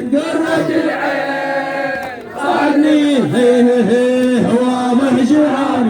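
Male voices chanting a Shia latmiyya (Arabic religious lament) unaccompanied, in long held notes with brief dips between syllables.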